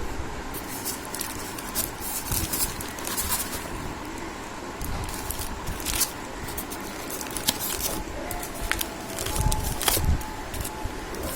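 Packing on a new ceiling fan being handled and pulled open: crackling, rustling and scraping, with many irregular sharp clicks.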